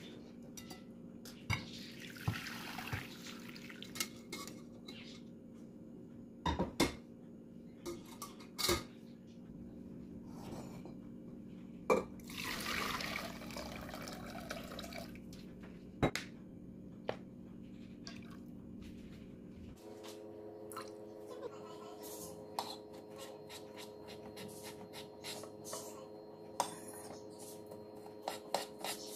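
Sharp clinks of utensils and a bowl against a stainless steel pot, with two spells of liquid pouring into the pot, about two seconds in and again about twelve seconds in. From about twenty seconds, a fork tapping and scraping on a wooden chopping board, shredding cooked chicken.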